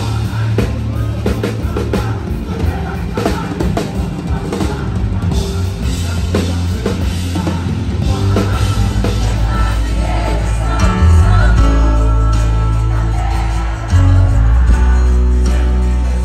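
A live gospel band plays loud through the stage sound system: drum kit, bass and keyboard, with a man singing over it. The drums are busiest in the first half, and held bass notes come to the fore later on.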